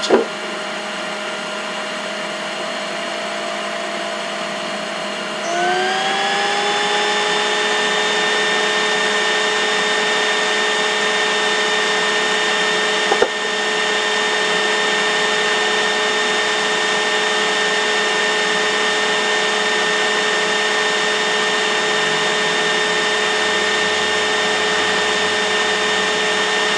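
An electric motor running steadily with a whine. About five seconds in, a second, louder whine slides up in pitch and then holds steady, and a single click comes about halfway through.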